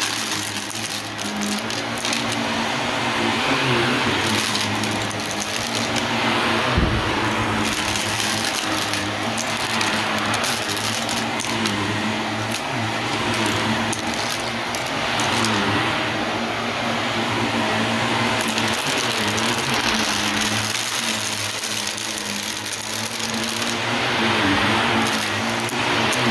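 Shark Navigator Lift-Away Deluxe upright vacuum running steadily over a rug, its level swelling and dipping every few seconds, with scattered sharp clicks and a single thump about seven seconds in.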